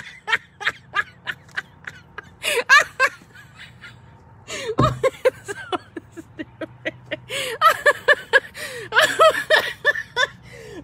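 A woman laughing hard, in quick repeated bursts of laughter that come in several fits, the loudest near the end.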